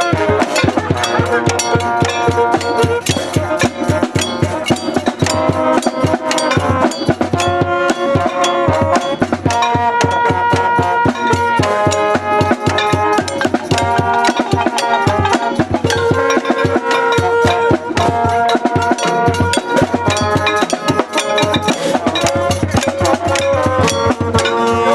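A noise parade's drums and other percussion being beaten fast and without a break, with held pitched notes from instruments sounding over the banging and changing every second or two.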